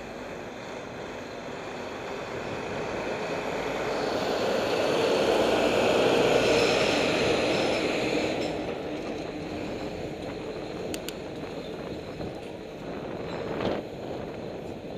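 Heavy dump truck driving past at close range, its engine and tyre rumble building to a peak about six seconds in, then fading as it pulls away. A short sharp knock comes near the end.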